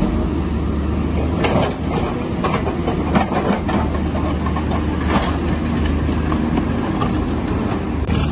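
Heavy construction machine's diesel engine running steadily, with scattered metallic knocks and clanks over it.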